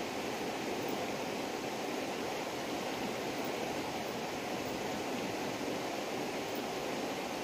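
Steady rushing noise, even in level, with no calls, knocks or other distinct sounds standing out.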